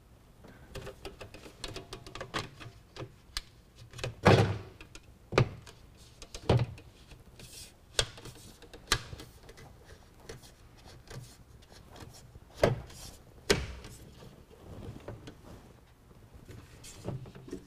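Plastic J-channel strip being snapped and worked along the top edge of a pickup's inner tailgate panel: irregular clicks and knocks, with a few sharper ones in the middle and again near the end.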